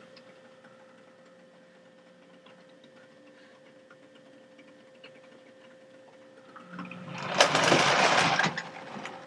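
HO-scale model locomotives running slowly: the faint whir of small electric motors with light clicking of wheels on the track and a steady hum. About seven seconds in, a loud, rough rushing noise lasts about two seconds.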